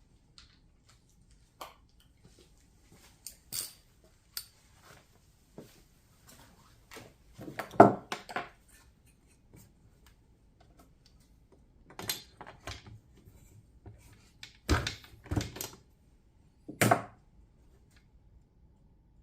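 Hand tools clinking and knocking against metal while the spark plug is removed from a chainsaw for a compression test: scattered sharp clicks, with the loudest clusters about halfway through and near the end.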